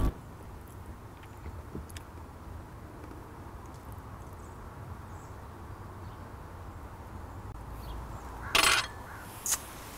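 Quiet background ambience with a low rumble and a few faint clicks. A short soft noise sounds about eight and a half seconds in, with a light click a second later.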